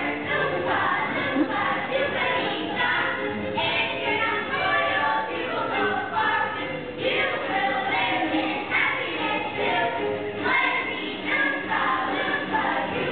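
A chorus of children's voices singing a show number together with music.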